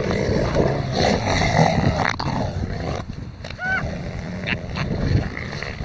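Bull southern elephant seals fighting chest to chest, with rough, low guttural grunting and growling that runs almost without a break. A short high call rises and falls a little past halfway through.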